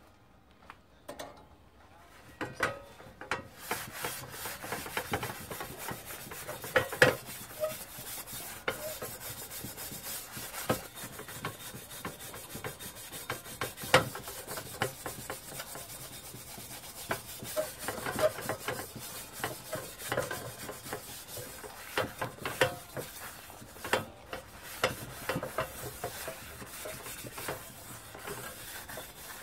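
Rubbing and scraping as a gloved hand works a pad around the inside of a hot copper pan, wiping on the tin lining during retinning. It starts about two seconds in and goes on steadily, with scattered sharper knocks against the pan.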